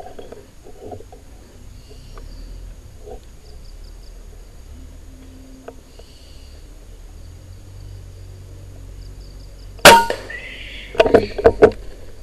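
A single air-rifle shot about ten seconds in: one sharp crack with a short ringing tail, the loudest sound here. About a second later comes a quick run of sharp clacks.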